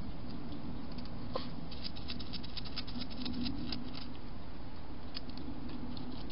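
A hedgehog chewing and crunching food: a quick run of crisp clicks for a few seconds around the middle, with a few more later, over a steady low background hum.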